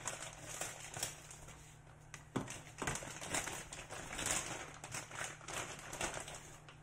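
Thin plastic bag crinkling and rustling irregularly as raw chicken is handled out of it, with a couple of sharper clicks about halfway through.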